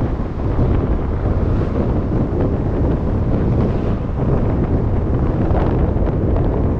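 Wind buffeting the microphone of a camera mounted on the outside of a moving car: a steady, loud low rumble.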